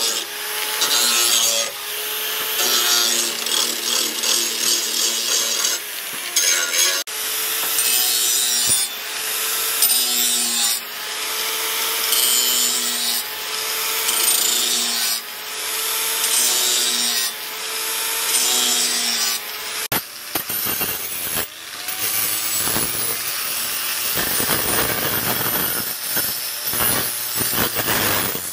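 Electric angle grinder with a sanding disc grinding a steel cleaver blade: a steady abrasive hiss over the motor whine. The whine sags and recovers with each pass, about every second and a half.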